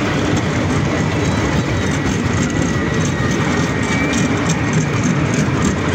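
Miniature ride-on park train running along its track, heard from aboard: a steady running noise with a faint high whine and a few brief squeaks.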